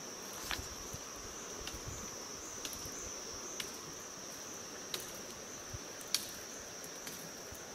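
Steady high-pitched drone of insects, with a handful of faint short clicks scattered through it.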